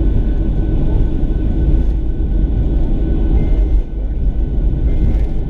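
Steady, loud rumble of a jet airliner's engines and airflow, with faint steady whining tones above it and a brief dip in level about four seconds in.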